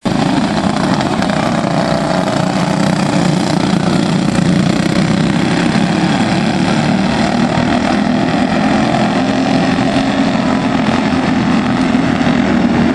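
Several quarter midget race cars' small single-cylinder engines buzzing together as a pack laps a dirt oval, a steady, unbroken drone.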